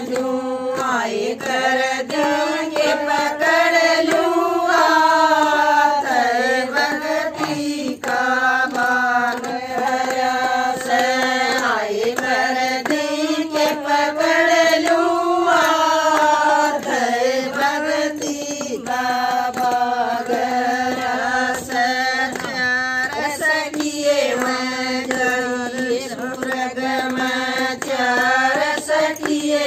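A group of women singing a Haryanvi devotional bhajan in unison, with hand claps keeping time under the voices.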